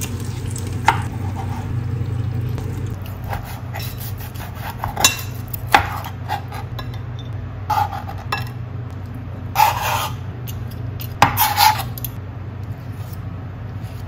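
Metal tongs and a knife clinking and scraping against a griddle plate and a ceramic plate as cooked chicken pieces are lifted across: a string of separate short clicks and scrapes, the busiest about two-thirds of the way through, over a steady low hum.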